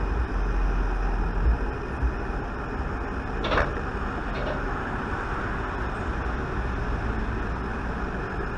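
Steady low rumbling background noise, with one brief sharp sound about three and a half seconds in.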